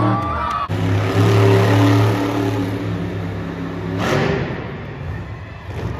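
Monster truck engines running loud at fairly steady revs, in clips spliced together: the sound breaks off abruptly under a second in, comes back, and about four seconds in turns rougher and noisier.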